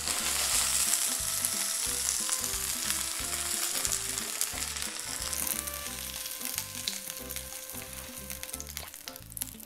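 Prawns and asparagus sizzling in a hot frying pan off the heat, the sizzle fading steadily, with faint clicks of chopsticks as the food is pushed out into a bowl of sauce.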